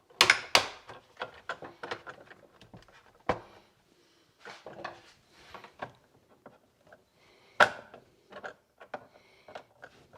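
Clicks, knocks and rubbing of the hard plastic parts of a Pentair Kreepy Krauly Racer pool cleaner being handled and fitted together as a bearing is pressed back into a wheel. There are sharp snaps near the start, at about three seconds and at about seven and a half seconds.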